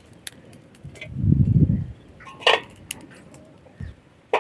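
Dry firewood sticks and an aluminium idli pot being handled: scattered light clicks and clinks, with a dull thump about a second and a half in and a short brighter sound about halfway through.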